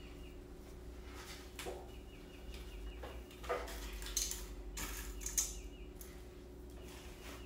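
Small craft pieces clicking and rattling against a metal muffin tin as they are picked out by hand: a scatter of light taps, the sharpest about three and a half and five seconds in.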